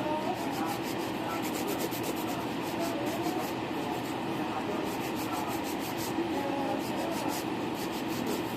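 A nail file rubbing against acrylic nails in quick, even back-and-forth strokes, shaping the acrylic.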